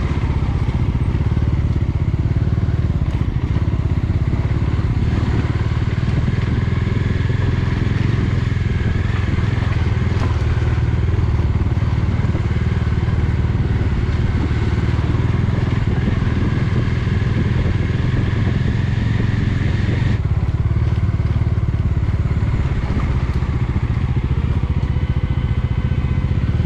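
Motorcycle engine running steadily on the move, with a constant low drone. The higher hiss fades away about twenty seconds in.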